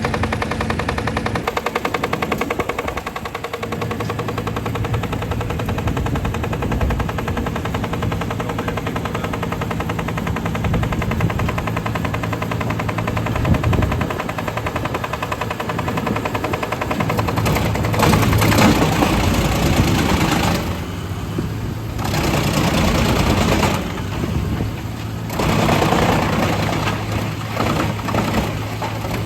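Tractor diesel engine running with a fast, even clatter. It grows louder and noisier twice, about eighteen and twenty-six seconds in.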